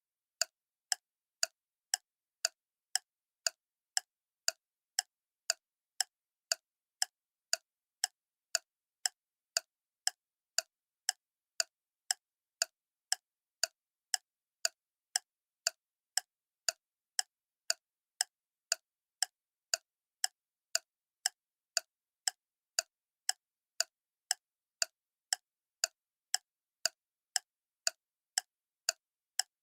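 Clock ticking steadily, about two ticks a second, each a short click with silence between.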